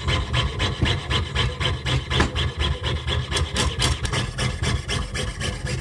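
Fine jeweler's saw blade cutting through a copper-nickel Susan B. Anthony dollar, a quick rasping back-and-forth of about six strokes a second. This is the final cut that frees the last pieces of a coin jigsaw puzzle.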